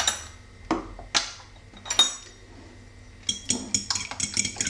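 Four separate sharp, ringing clinks of glassware and cutlery, then from a little past three seconds a fork beating raw eggs in a glass bowl: a quick run of clicks against the glass.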